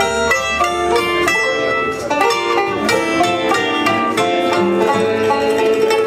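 Bluegrass band playing a fast tune live: rapid banjo and mandolin picking over guitar and upright bass.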